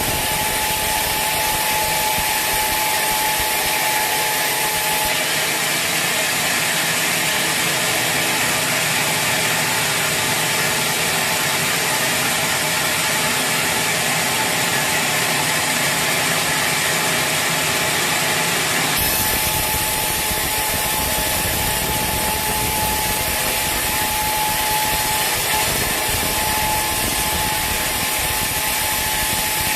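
Sawmill saw cutting through a teak log: a continuous loud rasping of the blade in the wood, with a steady high machine hum. The low rumble cuts out abruptly about five seconds in and returns about fourteen seconds later.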